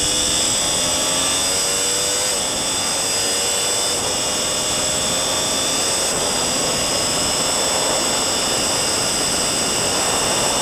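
Sport motorcycle engine accelerating hard at full throttle and upshifting through the gears. Its pitch rises, drops at a shift about two seconds in, and climbs again, under heavy wind rush at high speed.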